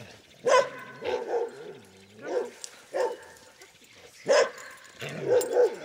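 A dog barking several times, short separate barks with brief pauses between them.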